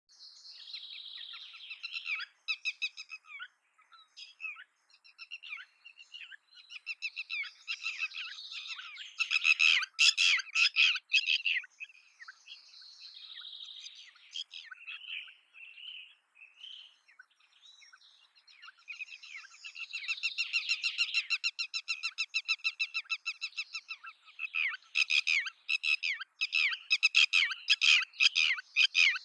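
Red-wattled lapwing calling: sharp, high notes repeated in quick runs. The calls are loudest about ten seconds in and again over the last few seconds.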